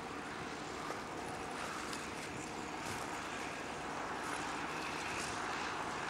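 Track Marshall crawler tractor's diesel engine running steadily under load as it pulls a plough, heard as an even distant drone.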